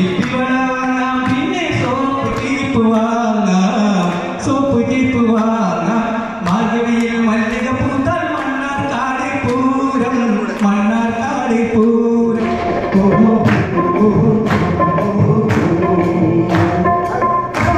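A man leads a song into a microphone with others singing along. About twelve seconds in, the music settles into steadier tones with a regular beat of sharp strokes, about two a second.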